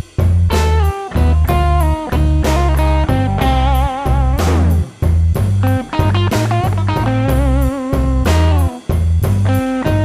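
Blues music: an electric guitar playing lead lines with bent notes over bass and drums.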